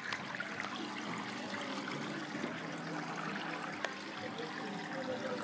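Steady trickling of water in a fish-pedicure tank, with one sharp click a little under four seconds in.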